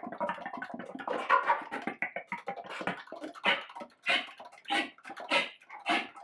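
Concert flute played with extended techniques: breathy air-noise sounds in short, irregular bursts and puffs, with little clear pitch.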